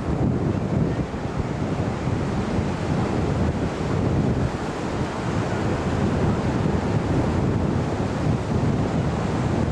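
Surf breaking on a beach, with wind buffeting the microphone in a steady low rumble.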